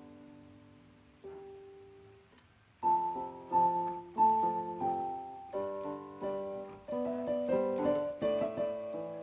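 Background piano music: a few held notes at first, then a busier melody of quicker notes from about three seconds in.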